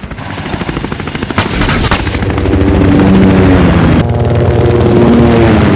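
Helicopter sound effect: rapid rotor-blade chopping that grows louder, with a high whine sweeping upward in the first two seconds and a steady engine drone underneath. It is the sound of a helicopter diving out of control with its tail rotor gone.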